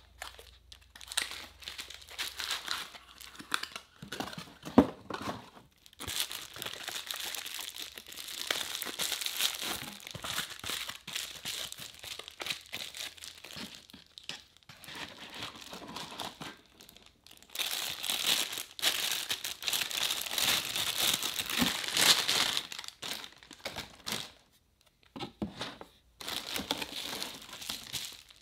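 Plastic packaging bags crinkling and rustling as they are handled and pulled out of a cardboard box. The crinkling comes in long spells, and a few sharp knocks come between them, the loudest about five seconds in.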